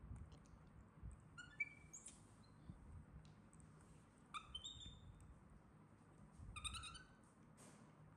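Baby macaque giving short, high-pitched squeaks in three brief bouts, about a second and a half, four and a half and six and a half seconds in, with a few faint knocks between them.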